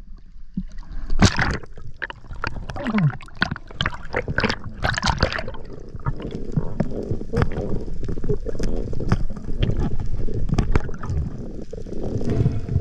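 Sea water sloshing and gurgling around an action camera at the surface, then muffled underwater noise with many scattered sharp clicks.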